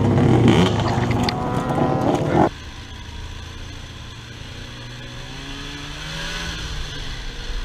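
An ATV engine running hard stops abruptly about two and a half seconds in. A snowmobile engine then runs steadily and more quietly, its pitch slowly rising.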